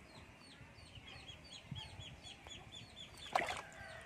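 Birds peeping in the background: short falling high notes repeating about four times a second, with a faster run of calls in the middle. A single loud, sudden sound cuts in shortly before the end.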